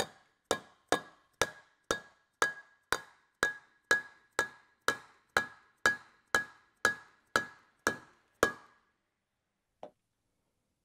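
Soft-faced mallet striking the top of a centrifugal pump's metal shaft in steady blows, about two a second, each with a short metallic ring, driving the shaft and its bearings down to the bottom of the bearing housing. The blows stop about eight and a half seconds in.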